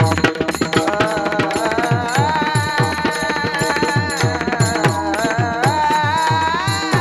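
Devotional singing: a high voice holds one long, wavering note that steps up in pitch a few times, over quick, steady hand-drum strokes and small cymbals.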